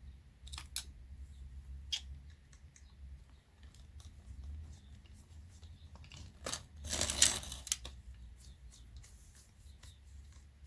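Scattered small clicks and knocks of plastic and metal parts being handled while a Panasonic SA-AK90 mini stereo is taken apart, with a louder scraping rattle about seven seconds in, over a steady low hum.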